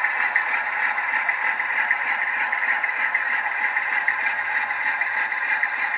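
DCC sound decoder in a model diesel locomotive playing a steady diesel engine sound through its small onboard speaker as the model runs along the track, with little bass.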